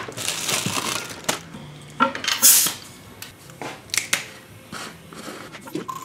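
A plastic bag crinkling and being crumpled as it is pulled off a jar, with several handling knocks and clicks and a short loud rustle about two and a half seconds in.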